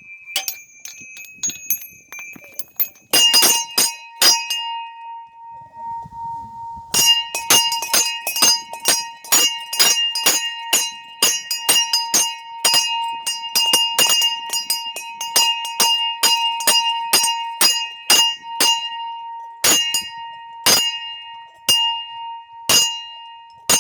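Russian-style bell ringing (kolokolny zvon) on a set of fairly small, high-pitched bells, struck by hand in a quick rhythmic pattern. A few lighter strikes come first, then a short lull. From about seven seconds in, dense rapid strikes of the small bells ring over one steadily sounding lower bell.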